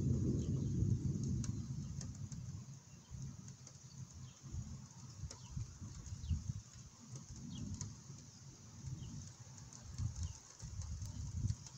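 Distant thunder rumbling low, loudest at the start and dying away over the first few seconds into an uneven low murmur, with faint high bird chirps over it.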